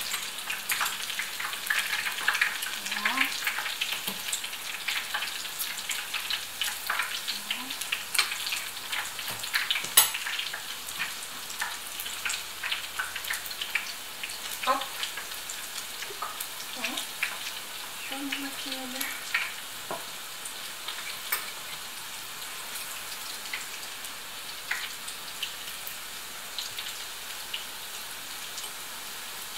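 Curd-dough rings frying in hot oil: a steady sizzle with dense crackling and popping, busiest in the first half and thinning somewhat after the middle, with one sharper pop partway through.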